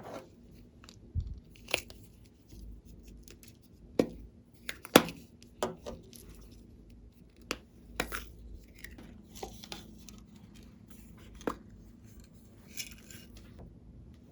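Glossy slime being handled and mixed by hand, giving irregular sharp pops and clicks, with short stretches of fine crackling near the end.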